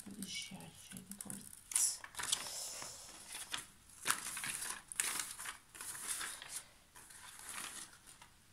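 Stiff protective paper on a diamond painting canvas being peeled back and folded by hand: irregular paper rustling and crinkling, quieter near the end.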